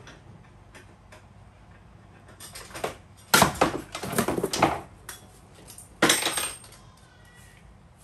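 Metal tools clanking and rattling as they are handled: a few brief clatters about two and a half seconds in, a longer run of clanks from about three seconds, and another short clatter about six seconds in.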